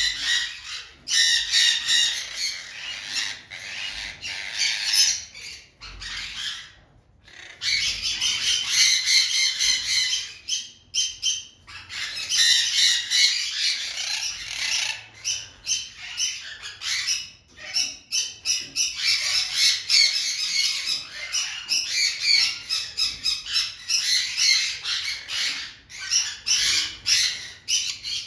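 Many birds squawking and chattering at once, a dense run of harsh overlapping calls with a brief lull about six seconds in.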